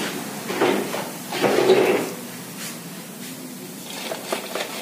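Fried veg manchurian balls being scooped out of hot oil in a large kadhai with a metal slotted ladle and tipped into a plastic tub. There are two bursts of scraping and clattering, about half a second and a second and a half in, the second the loudest, over the steady sizzle of the oil.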